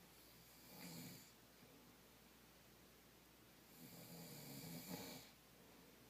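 A man snoring faintly in his sleep: a short snore about a second in, then a longer drawn-out snore from about four to five seconds.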